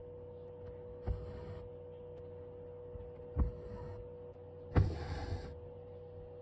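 Cotton embroidery floss pulled through thin canvas: three short swishes about one to two seconds apart, over a steady faint hum.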